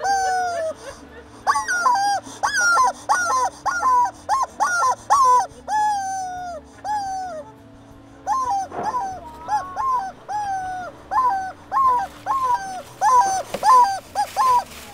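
Rubber screaming chicken toy squeezed over and over: a string of short squawks that bend up and down in pitch, about two a second, some drawn out longer. There is a short pause about eight seconds in.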